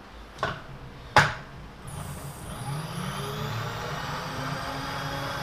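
Two sharp metallic clicks, the second louder, then the milling machine's table power feed motor starts about two seconds in, winding up in pitch and then running steadily as it moves the table.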